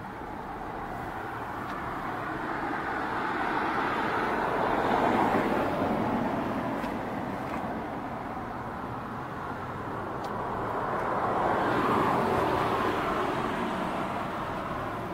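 Passing road traffic: the noise of one vehicle swells and fades about five seconds in, and another's about twelve seconds in.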